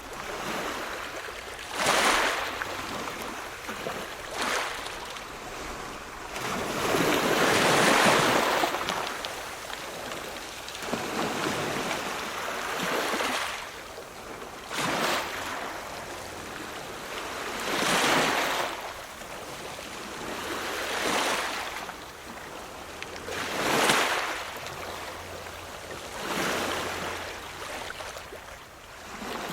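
Ocean waves breaking and washing in, rising and falling in a rush of surf about every two to three seconds, with the longest, loudest surge about eight seconds in.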